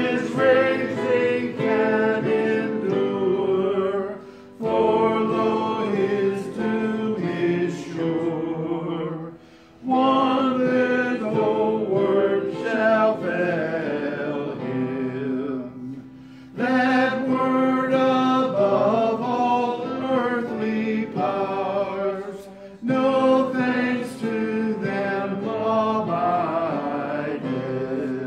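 A hymn sung by the congregation to electric keyboard accompaniment, in phrases of several seconds with brief pauses between lines.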